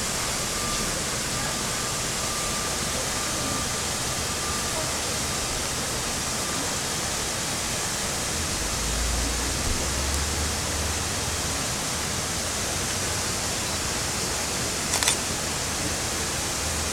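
Waterfall pouring into a pool: a steady, even rush of falling water. A low rumble joins it in the second half, and there is one short click near the end.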